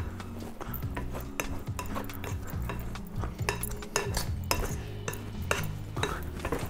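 Pastry cutter repeatedly pressed down through flour and cold butter in a bowl, cutting the butter into the flour for biscuit dough. It makes a run of irregular scraping clicks and clinks as the blades strike the bowl.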